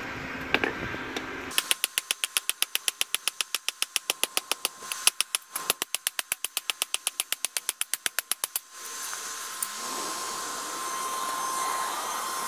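Hand hammer striking hot 5160 high-carbon spring steel on a section of railroad rail used as an anvil: a fast, even run of sharp metallic blows, six or seven a second, starting about a second and a half in and stopping after about seven seconds. The smith is drawing out and shaping the tip of the knife blade.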